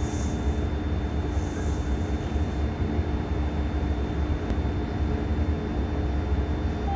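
Kintetsu 21000 series Urban Liner plus electric train standing at the platform with its onboard equipment running: a steady low hum with several steady whining tones. Two faint high hisses come in the first two seconds.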